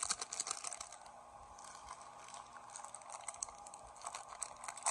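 Plastic wrapper of a gummy candy crinkling and crackling as it is handled and opened by hand, in quick irregular crackles, busiest near the start and again near the end.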